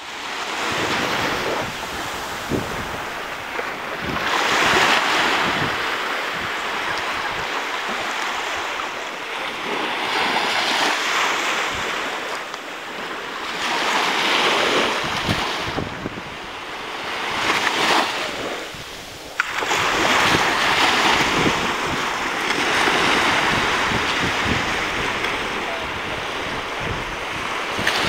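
Small Mediterranean waves breaking and washing up a sandy shore: a hiss of surf that swells and fades every three to six seconds.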